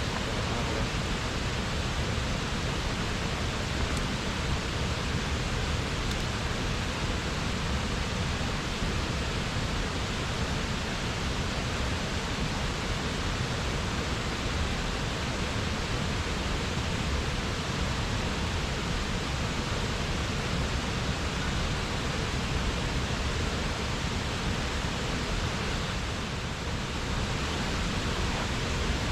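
Steady rushing of a mountain stream's fast water, an even unbroken noise.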